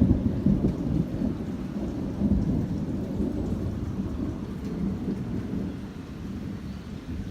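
Thunder rumbling low and long, slowly fading over several seconds, with rain falling steadily underneath.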